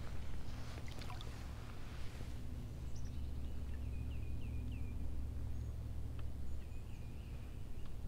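Outdoor ambience over a steady low rumble, with a few light clicks in the first two seconds and a bird calling a quick run of short, rising chirps in the middle and again near the end.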